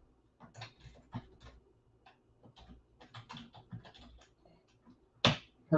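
Typing on a computer keyboard: a run of quick, irregular key clicks, then one louder click near the end.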